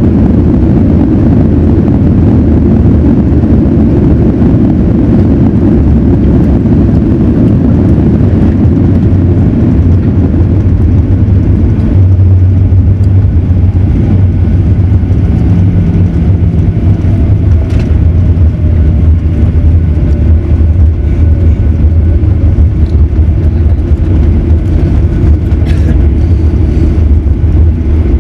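Inside the cabin of a Boeing 737-900ER, the steady low rumble of its CFM56 engines and airframe on the ground after landing. A faint tone falls in pitch about halfway through.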